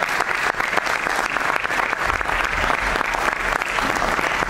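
Theatre audience applauding, a dense, steady clapping.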